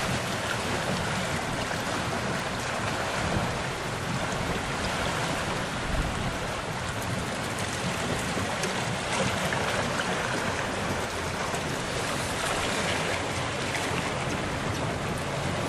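Steady rush of water along the hull of a sailing yacht under way, with wind on the microphone: an even noise with no let-up.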